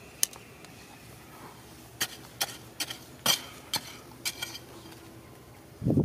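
Steel digging bar striking stony, rocky soil: a series of sharp metallic clinks, one shortly after the start and six or so between two and four and a half seconds in, followed by a duller thud of the bar driving into the dirt near the end.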